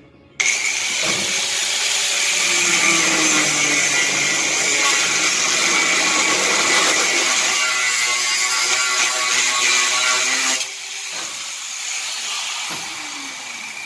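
Angle grinder grinding against a steel bar grill frame: a loud, steady high hiss and whine that starts suddenly about half a second in. About ten and a half seconds in the disc comes off the metal and the motor runs on more quietly, slowing down.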